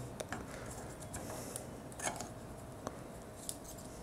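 Faint scattered clicks and ticks of a small plastic transforming robot figure's joints and parts being moved by hand, the loudest about two seconds in.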